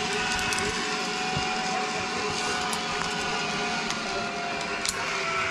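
Zipline trolley pulleys running along a steel cable: a steady whir with a thin high hum that slowly falls in pitch.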